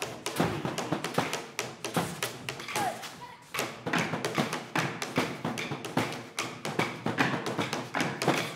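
Short wooden dance sticks clacking as a group of dancers strikes them together in a stick dance. Many sharp knocks come in a fast, uneven rhythm, with heavier thuds among them.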